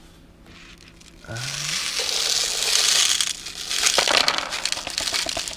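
Steel BBs poured from a container into the BB reservoir port of a Daisy Model 74 BB gun, a dense rattle of many small metal clicks that starts about a second and a half in and keeps going.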